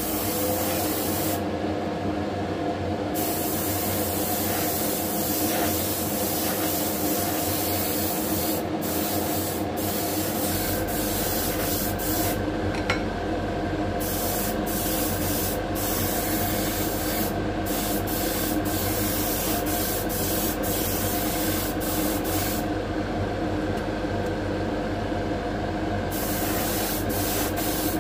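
Airbrush spraying 2K paint in long hissing passes, the air stopping briefly several times as the trigger is let off, over a steady motor hum.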